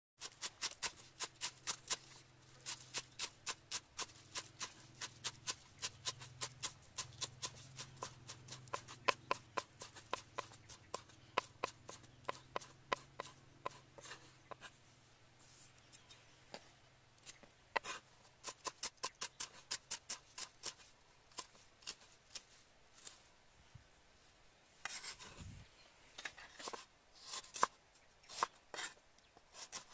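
Cleaver chopping green onions on a round wooden chopping block: a fast, even run of knife strikes, about four to five a second. In the last third the strikes slow into separate, uneven cuts as a root is sliced.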